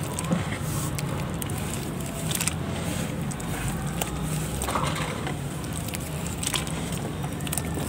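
A hand squeezing and crumbling wet mud under water in a tub: squelching and crackling, with small splashes, over a steady low rumble.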